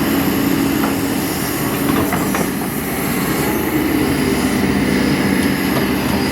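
Kobelco SK200 hydraulic excavator working, its diesel engine running steadily, with a few faint clicks.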